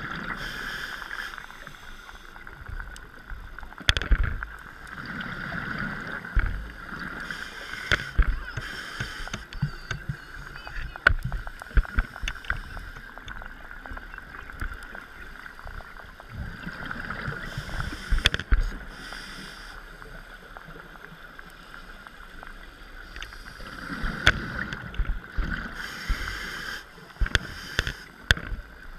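Scuba diver breathing underwater: noisy surges of exhaled regulator bubbles every several seconds over a steady hiss, with many sharp clicks scattered through.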